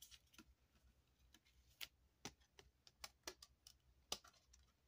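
Near silence with a few faint, scattered clicks and ticks of a clear plastic trading-card sleeve being handled.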